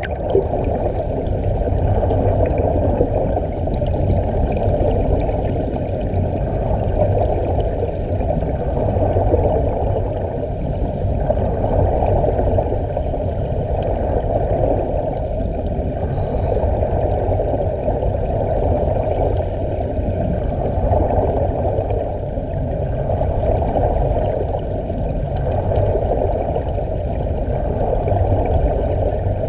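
Muffled underwater bubbling and water rush, heavy in the low end, as heard through an underwater camera's housing, swelling and easing every couple of seconds as the divers' air escapes.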